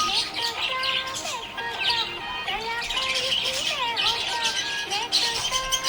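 Budgies chirping and chattering in quick, dense bursts, over background music with a melody.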